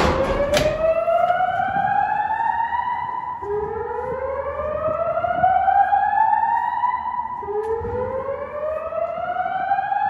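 Fire alarm voice-evacuation speakers sounding the slow whoop evacuation tone: a tone rising steadily in pitch over about three and a half seconds, starting again about every four seconds. Two sharp knocks come right at the start.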